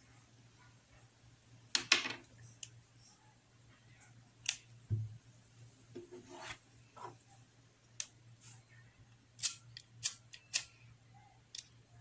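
Scissors snipping crochet thread ends: a scatter of sharp snips and clicks, loudest about two seconds in, with a quick cluster of clicks about nine to eleven seconds in.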